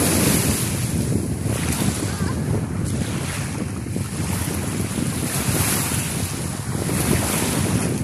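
Small waves washing up and back on a sandy shore, the hiss rising and falling every couple of seconds, with wind buffeting the microphone.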